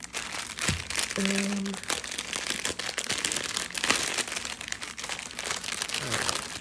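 Small plastic bags of diamond-painting drills crinkling as they are handled, a dense run of crackles.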